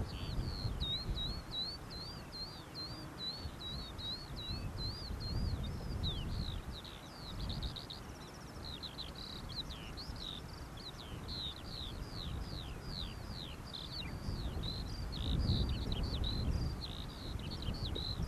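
A songbird singing a long, unbroken song of quick, varied chirps and trills, over the low, gusting rumble of wind on the microphone.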